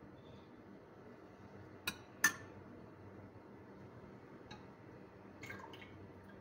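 Two sharp clinks about two seconds in, a metal spoon knocking against a glass baking dish as soft ras malai patties are set down in it, followed by a few lighter taps near the end.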